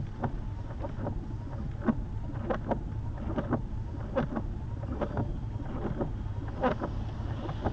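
Steady low road and engine rumble inside a lifted Jeep's cabin while driving, with irregular sharp taps and knocks scattered through it.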